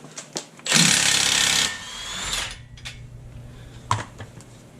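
Half-inch Milwaukee impact wrench hammering for about a second on the 32 mm front axle nut to break it loose, then briefly spinning again more quietly with a rising whir as the nut runs off. A few light metallic clicks follow.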